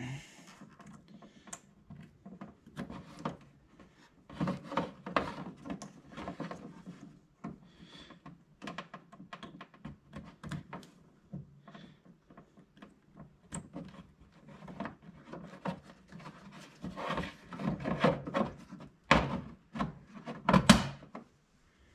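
Handling noise of plastic and wiring: rubbing, scraping and irregular clicks as wire connectors are pushed onto a rocker switch and the switch is worked into a plastic dash panel. The knocks and clicks grow louder and busier in the last few seconds as the switch is pressed into place.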